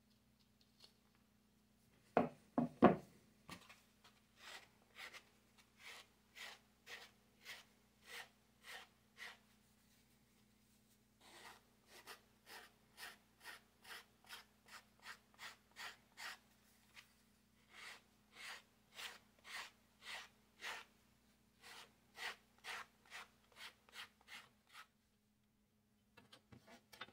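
Three sharp cuts of hand snips through thick leather a little after two seconds in, then long runs of even back-and-forth rubbing strokes, about two to three a second, of a sanding sponge smoothing the trimmed leather edges.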